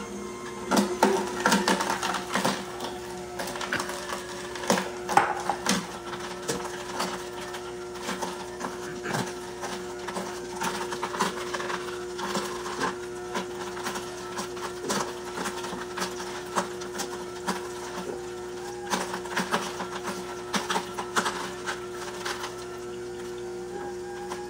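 AMZCHEF two-speed horizontal masticating slow juicer running on its high speed with a steady motor hum. Its auger is crushing carrots fed down the chute, with frequent irregular crunching and cracking, loudest about a second in and again around five seconds.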